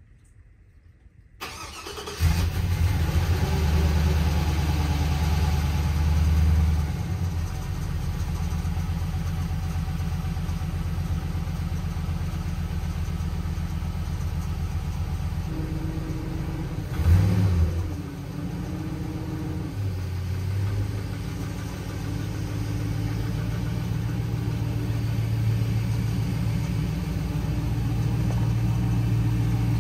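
LS V8 engine in a 1977 Ford F150 cranking briefly and catching about two seconds in. It runs at a high idle right after starting and settles to a lower, steady idle at about six seconds. There is one short rev of the throttle about halfway through.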